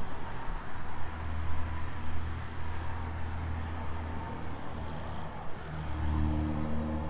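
Two-stroke engine of a Stihl string trimmer running with a steady low hum, its note changing and growing louder about six seconds in.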